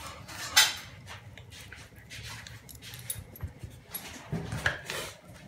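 A dog gnawing on a large tomahawk rib eye bone: scattered sharp cracks and knocks of teeth on bone, the loudest about half a second in, with a cluster of louder knocks about four seconds in.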